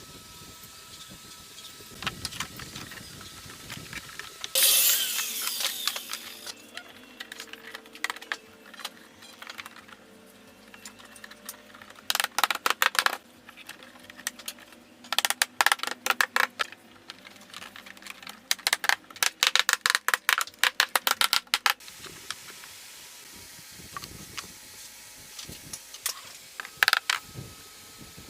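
Woodworking shop sounds: bursts of rapid, sharp clicking and tapping on wood, with a short hiss about five seconds in.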